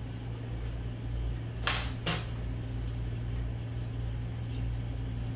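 Steady low mechanical hum with two short, sharp handling noises in quick succession about a second and a half in, and a faint click near the end, as small slingshot parts are handled.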